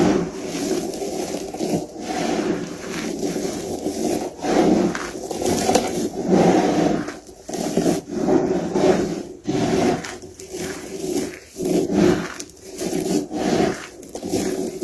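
Soap being crushed and scraped, a run of scratchy, crumbling rubs that come irregularly, roughly one a second.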